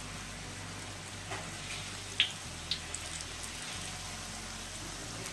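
Corn and shrimp fritters deep-frying in hot oil in a wok: a steady sizzle with a few sharp pops of spattering oil.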